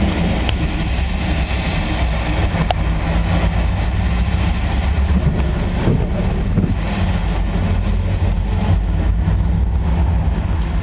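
Diesel engine idling with a steady low rumble, heard from inside a vehicle's cabin.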